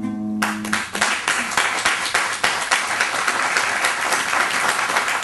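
Audience applauding: dense clapping starts about half a second in and keeps up steadily. A held note of the accompanying music fades out in the first second.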